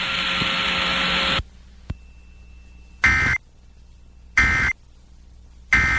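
A second and a half of steady hiss, then the Emergency Alert System's end-of-message data burst sent three times. Each is a short, harsh, buzzy warble about a third of a second long, with the bursts about a second and a half apart, marking the end of a relayed flash flood warning.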